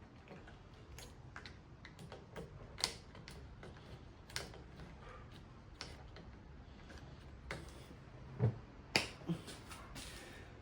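Irregular light clicks and taps of hand-work on bicycle handlebar and shifter parts, with a few louder knocks and clicks a little before the end.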